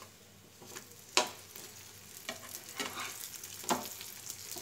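A metal spatula scraping and knocking against a hot tawa while flipping bun parottas, with oil sizzling under them. A few sharp knocks, the loudest about a second in, and the sizzle grows louder as the browned sides go down.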